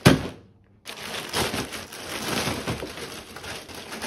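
A plastic-wrapped package lands on the desk with a sharp thud right at the start; after a short pause, a plastic mailer bag crinkles and rustles steadily as it is handled and opened.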